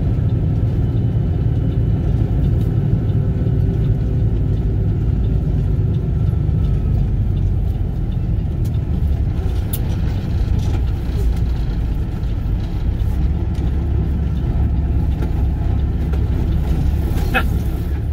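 Steady low rumble of a truck driving on a gravel road, its engine and tyres heard from inside the cab. A few sharp ticks stand out, one about ten seconds in and one near the end.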